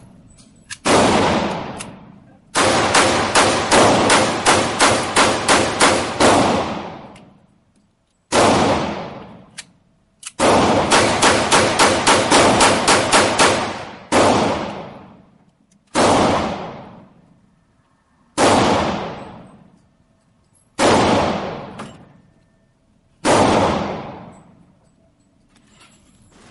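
Gunshots: a single shot, then a quick string of about a dozen shots at roughly three a second, another single shot, a second rapid string, then five single shots a couple of seconds apart. Each shot has a long echoing tail.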